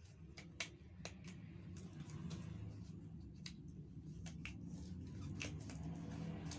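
Rubber examination gloves being pulled on and worked over the fingers: irregular small snaps and rustles, over a low steady hum.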